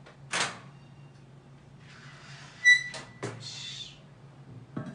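A portable cassette gas stove and a steel kettle being handled: a brief swish early, then a sharp metallic click with a short ring, followed by about a second of scraping as the stove is moved.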